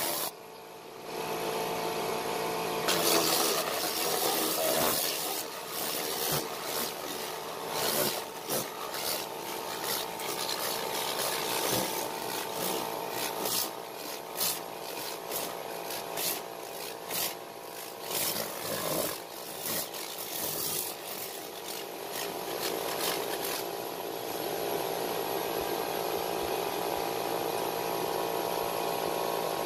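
Irregular scrubbing and rubbing strokes on a cloth vehicle seat's upholstery, over the steady hum of a running motor. The strokes are thickest in the first two-thirds.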